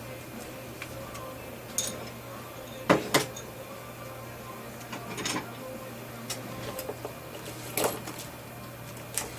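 Metal dental hand instruments clicking and clinking in short, irregular taps, loudest about three seconds in, over a steady low hum.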